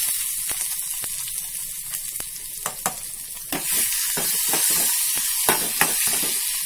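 Chopped onions sizzling in hot oil in a kadai, the first stage of a tadka for dal, while a metal ladle stirs them with repeated scraping clicks against the pan.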